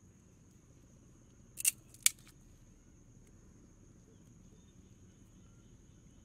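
Two sharp clicks about half a second apart, a little under two seconds in: bamboo slats of a fish-trap grate knocking together as they are set by hand. A steady high insect trill runs underneath.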